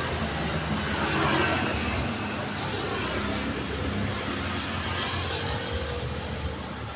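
Road traffic: cars passing continuously with engine hum and tyre noise, one vehicle passing louder about a second in.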